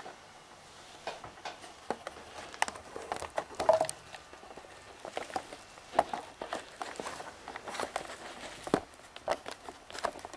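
Handling noise from a handheld camera: fabric rubbing over the microphone and irregular small clicks and knocks as it is moved about.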